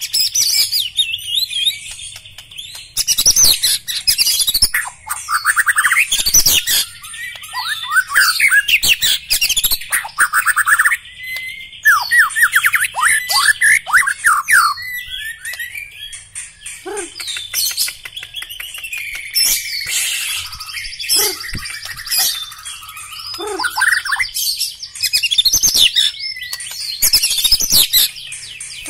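White-rumped shama singing a loud, varied song of fast trills, whistles and rapid sweeping notes, in bursts separated by short pauses.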